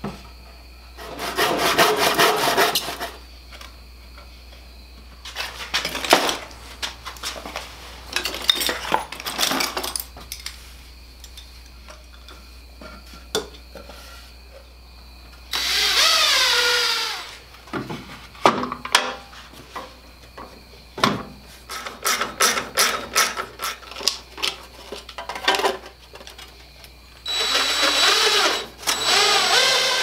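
Cordless drill boring and driving into a wooden board and a metal mounting plate in several bursts of a few seconds each, one of them falling in pitch as the drill winds down. Sharp knocks and clatter of the board and hardware being handled come in between.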